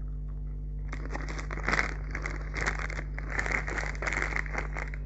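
Plastic snack bag crinkling as it is handled, in dense crackly bursts that start about a second in and run until near the end.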